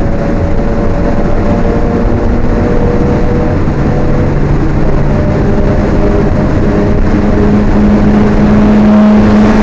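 Alfa Romeo 1750's twin-cam four-cylinder engine running hard at fairly steady revs, heard from on board the car on track. It gets slightly louder toward the end.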